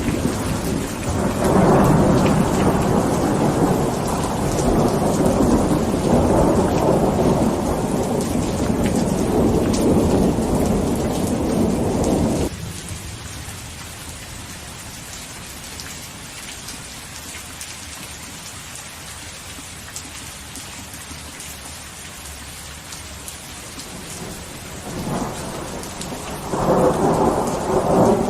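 Thunderstorm: steady rain with a long rolling rumble of thunder that cuts off suddenly about halfway through, leaving softer rain hiss. Thunder rumbles again near the end.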